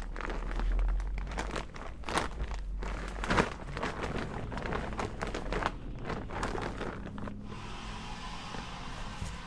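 Soil, roots and an old grow bag being handled and emptied, with irregular rustling and crunching and a sharp crack about three and a half seconds in. About seven and a half seconds in, the steady hiss of a leaf blower starts and carries on.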